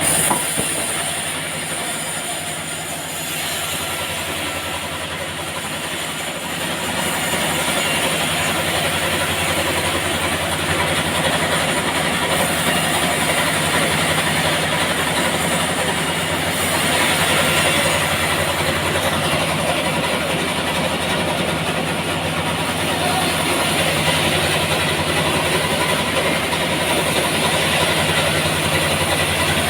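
Sawmill machinery running steadily: a low engine hum under the noisy rush of the saw, getting louder about seven seconds in.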